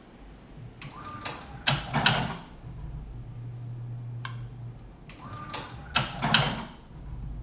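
Tajima SAI embroidery machine's thread trimmer making two manual cuts about four seconds apart. Each cut is a quick run of mechanical clicks and clatter, with a low steady hum from the machine between them. The owner hears this bobbin-thread cut as sounding different from another machine of the same kind.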